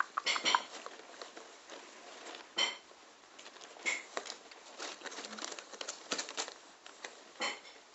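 Irregular crisp crunches and rustles, loudest about half a second in and again near 2.5, 4 and 7.5 seconds in: a guinea pig biting and chewing a raw baby carrot held to its mouth, rubbing against cardboard and a paper bag.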